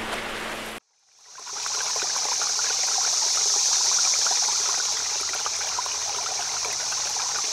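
Rushing river water that cuts off abruptly under a second in. After a brief silence, a steady babbling stream with small trickling drips fades in.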